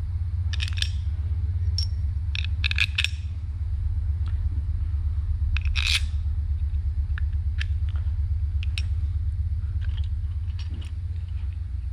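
Light metallic clicks and clinks as a Harley Twin Cam rocker arm support plate with its rocker arms is handled and set onto the cylinder head, the sharpest knock about halfway through. A steady low hum runs underneath throughout.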